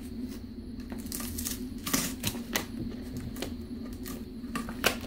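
Hands handling a small cardboard box and its packaging: scattered clicks, taps and scrapes of cardboard flaps and tape being worked open, with a cluster of sharper clicks about two seconds in and another near the end, over a faint steady low hum.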